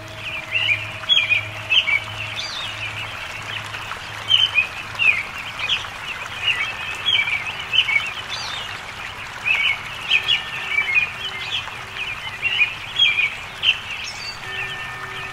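A dense chorus of songbirds chirping and twittering continuously, many short calls overlapping.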